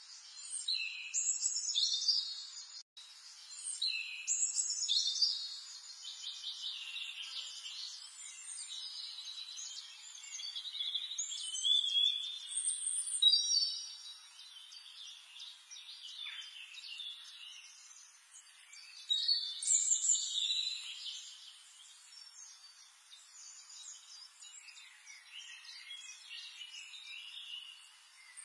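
Birds chirping and singing in many quick, overlapping high-pitched calls over a faint background hiss. The chirping swells and fades in clusters.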